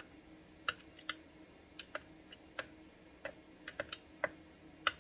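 Irregular sharp clicks and taps, about a dozen in five seconds, from a small hand tool picking at the inside of a McCulloch Pro Mac 700 chainsaw's open fuel tank, which is fouled with gelled old fuel.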